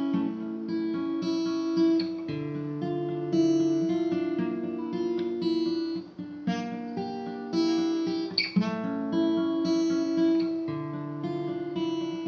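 Acoustic guitar played fingerstyle, picking the strings one after another in a repeating pattern that moves from chord to chord.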